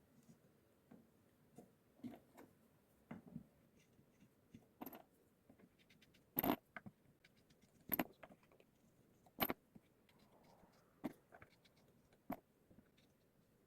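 Scattered light clicks and knocks of small hard objects being handled and set down, with three sharper knocks about six and a half, eight and nine and a half seconds in.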